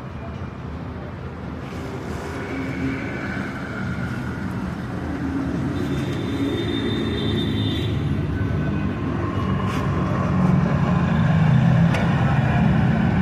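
Motor vehicle engine and road traffic noise, a steady rumble that grows louder toward the end.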